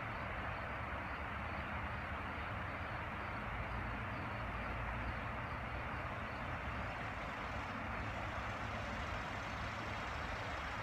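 River water rushing over shallow rocky rapids: a steady, even wash of noise.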